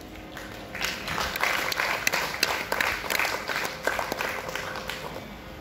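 Audience applauding, starting about a second in and dying away near the end, with a few sharp single claps close by.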